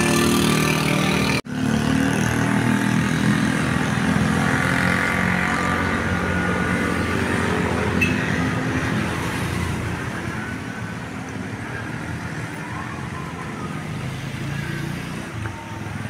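Large bus engine running as the bus pulls away and drives past, the rumble easing off over the last few seconds. A sustained tone in the first second and a half cuts off abruptly.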